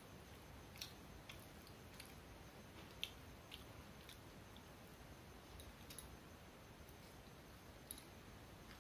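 Faint eating-by-hand sounds: rice being kneaded on a steel plate and chewed, heard as scattered soft clicks and smacks, the sharpest about three seconds in.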